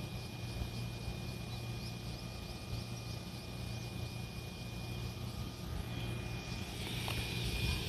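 Electric commuter train standing at a platform with its doors open: a steady low hum from its onboard equipment, with a thin steady whine above it. A hiss swells up near the end.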